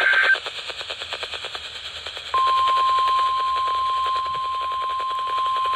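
NOAA Weather Radio emergency alert: a loud buzzy SAME digital header burst ends about a third of a second in, followed by a couple of seconds of quieter crackly reception noise. Then the single steady 1050 Hz warning alarm tone starts about two seconds in and holds, signalling that a warning is about to be read.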